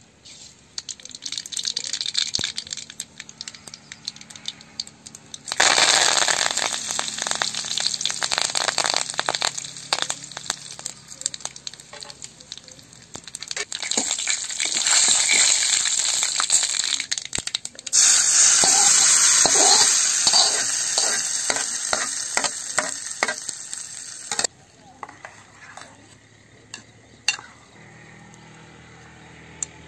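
Hot oil sizzling loudly in an iron kadai as green leaves fry in it, with the clicks of a thin metal spoon stirring. The sizzle comes in stretches that start and stop abruptly, jumping louder a few seconds in and again later. It cuts off well before the end, giving way to a few light clinks of a spoon in a steel bowl.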